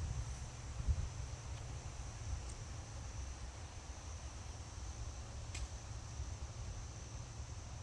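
Forest ambience: a steady high-pitched insect drone, like crickets, over an uneven low rumble, with one sharp click about five and a half seconds in.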